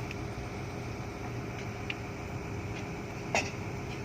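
Heavy diesel engine running steadily at a low pitch during the loading of an excavator onto a transport truck, with a few faint clicks and one sharper metallic knock a little over three seconds in.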